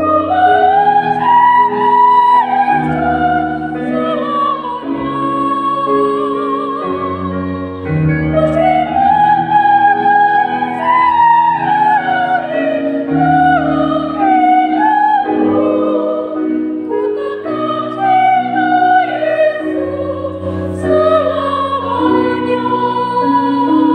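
A high, classical-style voice sings long phrases of held notes with vibrato, over keyboard chords, during a vocal practice.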